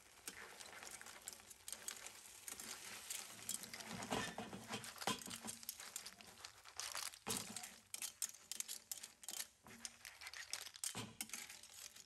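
Spaghetti being tossed with tongs in a frying pan of clams: irregular clicks and clatters of clam shells and tongs against each other and the pan, over the soft bubbling of the simmering cooking liquid.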